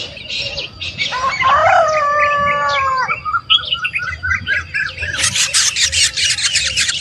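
Birds calling at a nest: short chirps, then a drawn-out call lasting about two seconds and a string of quick chirps. From about five seconds in comes a fast, harsh run of squawks, the begging of nestlings.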